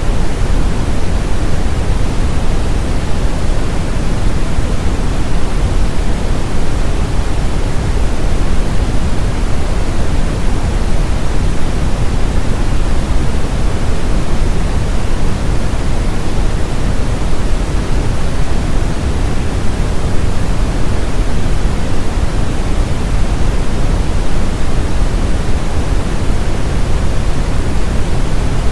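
Steady brown noise: a deep, even hiss that is strongest in the low end, with no change or events.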